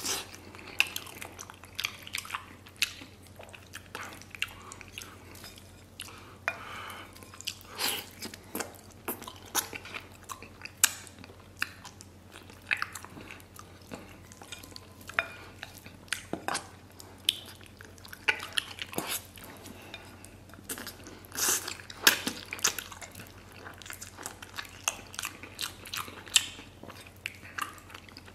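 Close-up mouth sounds of eating braised pork trotter and rice: wet chewing, lip smacks and sucking at the meat, with short clicks of chopsticks against a ceramic bowl.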